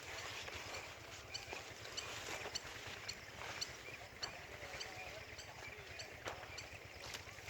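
A small bird chirping over and over, short high chirps about twice a second, with a few faint clicks in between.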